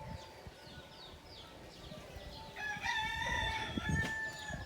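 A rooster crowing once, a long call starting about two and a half seconds in, over small birds chirping repeatedly in short, high, falling notes.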